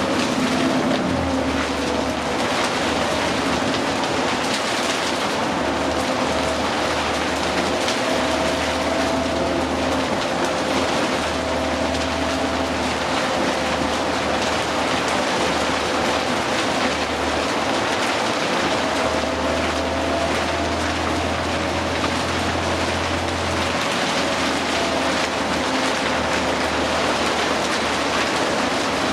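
Cabin sound of a 2009 New Flyer D60LFR articulated diesel bus under way: the engine and drivetrain running with a steady whine and a low rumble that fades and returns, over a constant hiss of rain.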